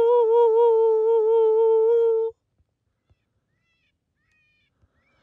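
Electronic predator caller playing a long, loud, wavering howl-like call that stops abruptly about two seconds in.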